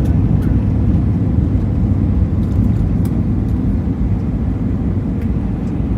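Heavy, steady low rumble inside an Airbus A320 cabin from the jet engines and the airflow over the airframe, easing slightly, with a few faint ticks and rattles from the cabin.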